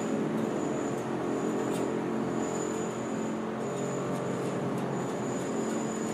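A steady motor drone with several held low pitches and a faint high whine that comes and goes.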